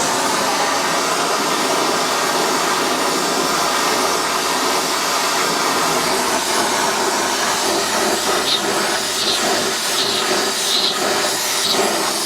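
Oxy-propane torch flame hissing steadily as it heats a fluxed brass joint for silver soldering, bringing the metal up toward dull red.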